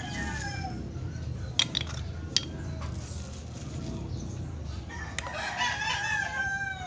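A rooster crowing: the tail of one crow just at the start, then a second long crow from about five seconds in, falling in pitch at the end. Two sharp clicks about a second apart come between the crows.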